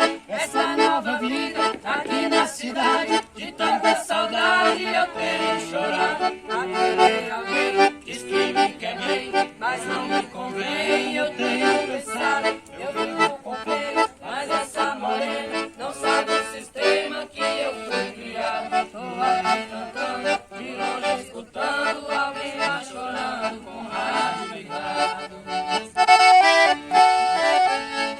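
Accordion playing an instrumental passage of a sertanejo modão tune, a quick-moving melody over a steady rhythmic accompaniment.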